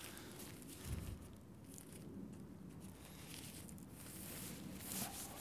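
Faint rustling of a Nordisk Lofoten 1 tent's fabric and mesh inner as its pole is handled and fitted, with a soft bump about a second in.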